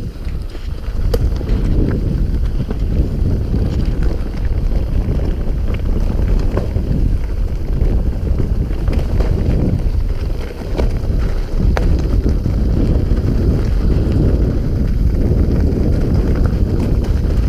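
Mountain bike running fast down a rough dirt forest trail: a steady low rumble of tyres over dirt, leaves and roots, with wind buffeting the microphone. A few sharp clicks and knocks, one about a second in and one near twelve seconds.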